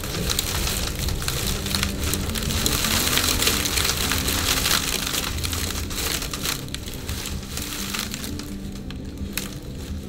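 Storm wind gusting against the cabin: a rushing hiss that swells a few seconds in and eases off toward the end, with a fine crackle of wind-driven snow.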